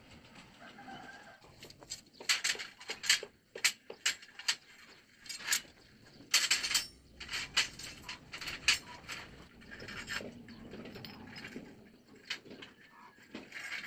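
Thin steel bars clinking and clanking against each other and against a steel window frame as they are picked up and laid down. The knocks come in two quick runs, one early and one around the middle.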